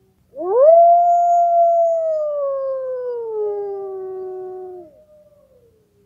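A wolf howling, used as a countdown timer's alarm at zero. It gives one long howl that swoops up steeply, holds high, then slowly sinks in pitch over about four seconds and stops. A fainter howl trails on behind it.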